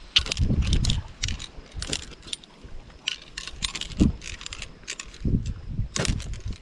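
Small metal shovel digging into dry, sandy, stony soil: a series of irregular scrapes and crunches as the blade bites in and the dirt is thrown aside.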